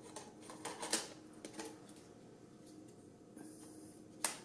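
Light clicks and clatter of a camera and lens-mount adapter being handled and fitted together, a quick run of small clicks in the first second and a half and one sharper click near the end.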